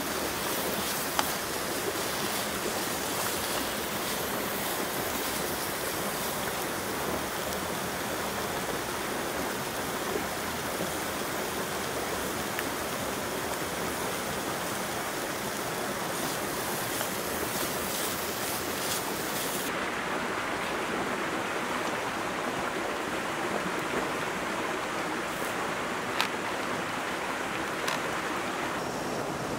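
Food sizzling over a campfire: chicken and bell pepper pieces frying in a small pan, then skewers grilling on a rack over charcoal. A steady hiss with a couple of sharp pops; its higher part drops away about twenty seconds in.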